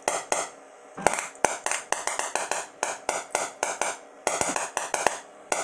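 Capacitor-discharge sparks of a DIY EDM machine cracking between a stationary silicon bronze electrode and a grade 8 steel bolt under tap water: a rapid, irregular string of sharp snaps, about four a second. The sparks are violent, which the builder puts down to too much capacitance causing too big a bang.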